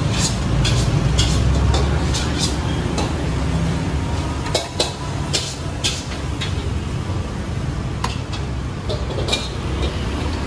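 Metal tongs clicking and clattering against steel pans and trays in a series of sharp irregular clicks, over a steady low rumble of road traffic.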